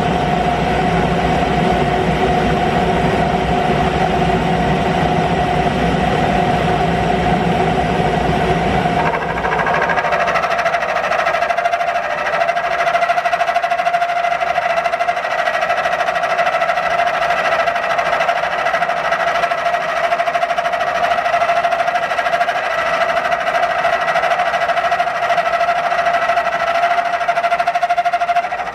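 Milling machine running a new end mill across steel, a steady whining tone with a low rumble under it. About nine seconds in, the rumble drops away and higher ringing tones come in as the cut goes on. The cutter likes to chatter in this cut.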